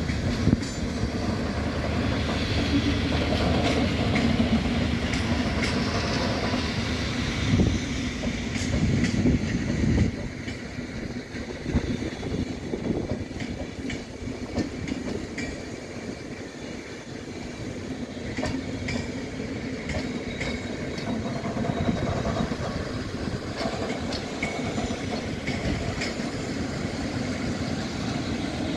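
PKP Intercity passenger coaches rolling slowly past: a steady wheel-on-rail rumble with irregular knocks as the wheels pass over the track, somewhat quieter around the middle.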